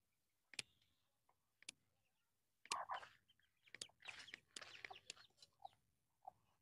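Faint footsteps and rustling of a person walking with a spade over wet ground strewn with twigs and debris. Scattered light clicks, with a short crackly patch about three seconds in and another from about four to five seconds.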